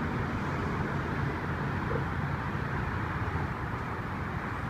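Steady highway traffic noise, an even rumbling hiss with no separate events.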